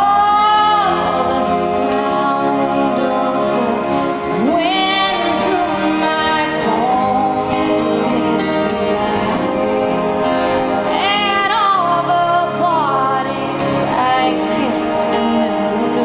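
Live music: a woman singing a slow ballad into a microphone, sliding up into long held notes, over acoustic guitar accompaniment.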